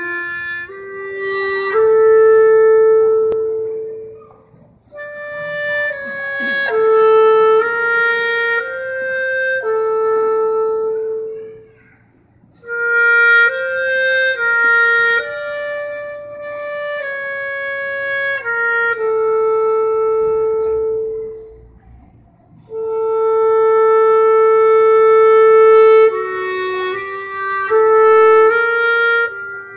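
Solo clarinet playing a slow melody in four phrases, with long held notes and short pauses between phrases.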